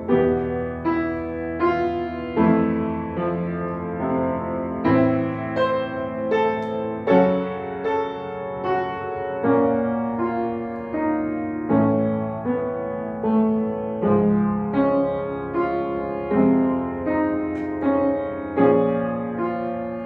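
Upright piano played solo: a slow piece of chords and notes struck roughly once a second, each ringing and fading before the next.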